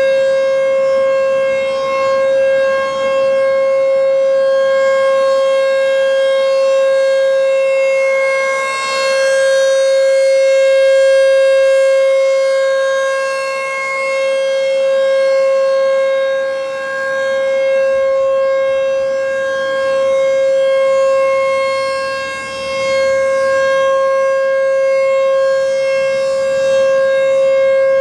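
American Signal T-128 outdoor warning siren sounding its Full Alert: one steady, unbroken tone with strong overtones. Its loudness swells and dips every several seconds as the rotating siren head turns.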